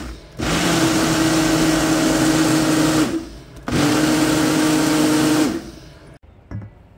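Ninja personal blender pulsing a liquid mix of milk and eggs. The motor runs loudly in two bursts, about three seconds and then about two seconds, with a short break between them, and winds down near the end.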